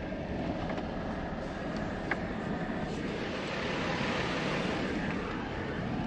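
A vehicle driving along with steady road and wind noise that swells a little midway, and a single click about two seconds in.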